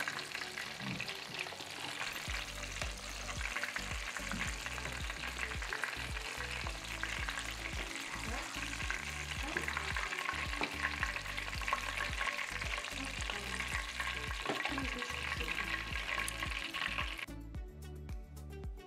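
Breaded yellow perch fillets frying in about an inch of hot avocado oil in a cast-iron skillet, a steady crackling sizzle. It cuts off suddenly near the end.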